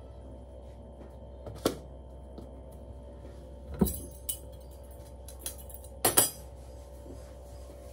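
Kitchen work while making rotis: a handful of sharp clinks and knocks of utensils, the loudest a quick double knock about six seconds in, over a steady low hum.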